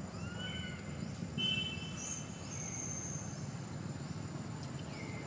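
Outdoor ambience: a steady low rumble under a thin, steady high insect-like drone. A few short, high, rising-and-falling calls come near the start and again in the middle.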